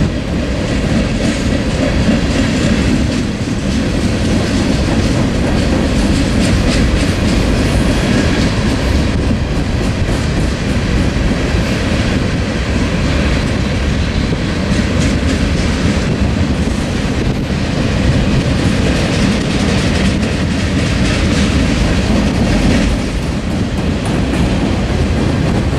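Freight train of tank cars and hoppers rolling steadily past, its steel wheels clicking over the rail joints above a continuous rumble.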